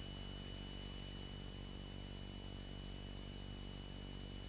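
Faint steady hiss and low hum of a light aircraft's intercom audio feed between transmissions, with a thin steady high-pitched whine.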